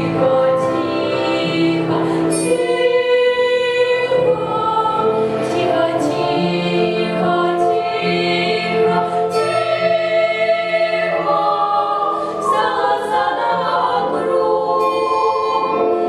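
Children's choir singing, with held notes moving from chord to chord over instrumental accompaniment that carries a low bass line.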